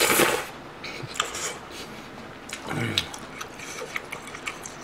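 Close-miked slurp of glass noodles sucked up from a small dish, right at the start, then wet chewing with scattered small clicks of chopsticks on the dish.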